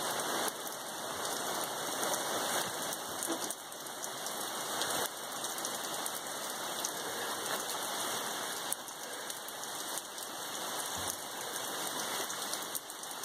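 Rain pouring down steadily: a dense, even hiss flecked with many small drop ticks.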